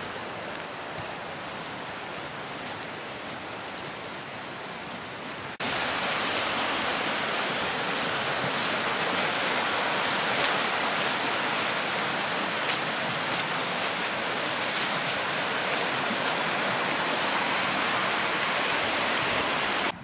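Steady wind hiss with small clicks for the first five seconds or so, then a sudden cut to a fast river rushing over rocks: a louder, even rush of white water.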